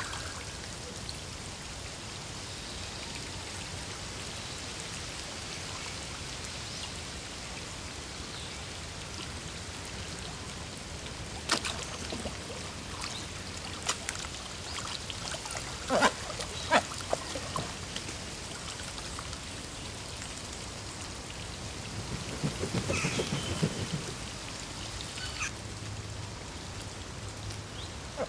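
Steady rain falling, an even hiss, broken by a few sharp knocks and later a louder rough patch lasting about two seconds.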